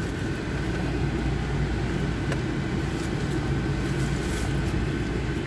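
Steady car noise from inside the cabin: a low, even rumble of engine and road.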